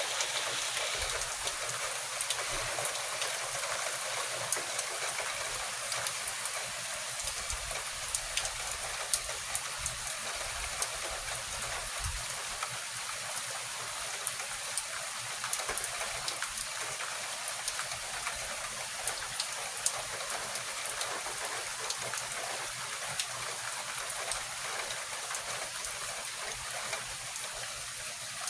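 Steady rain falling during a thunderstorm, an even hiss dotted with many small sharp drop hits.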